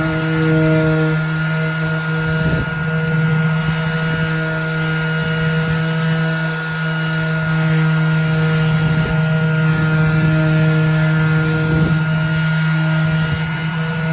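Bauer 20-volt cordless 5-inch random orbital sander running at steady speed, sanding paint off a board, with a steady low hum and a higher whine. It carries a rubbing noise that the owner takes for the rubber pad rubbing against the top of the tool.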